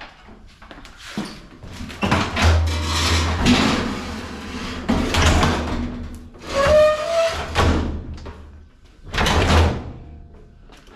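An appliance being taken apart for scrap: four bursts of scraping and clattering as its parts are pulled and shifted, with a short squeak about seven seconds in.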